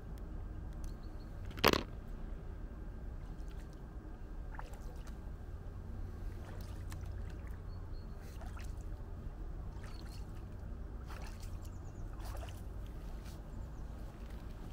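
Bare feet wading and splashing through shallow lake water, with one sharp knock a couple of seconds in.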